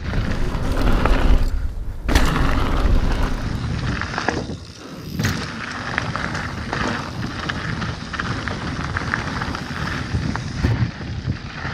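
Mountain bike rolling fast down a dirt and gravel trail: heavy wind buffeting on the action camera's microphone over tyre noise, with steady clicks and rattles from the bike. It eases briefly about four and a half seconds in, then picks up again.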